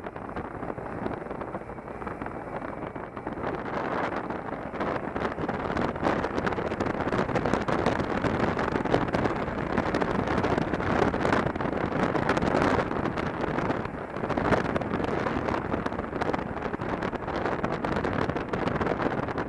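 Wind rushing over a helmet-mounted camera microphone on a moving motorcycle, with the engine running underneath. The rush grows louder a few seconds in and eases briefly about two-thirds of the way through.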